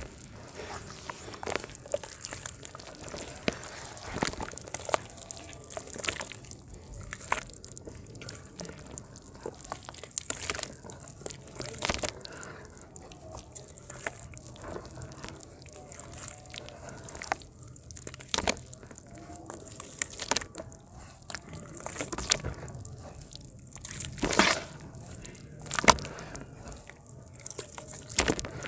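Hands squeezing and kneading lumps of dry mud dirt in a tub of muddy water: wet squelching and sloshing, with irregular short splashes and crackles as the lumps crumble.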